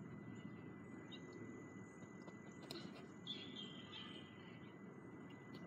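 Quiet outdoor ambience: a steady low background rumble with faint bird chirps about a second in and again around three to four seconds in, and a soft knock near the middle.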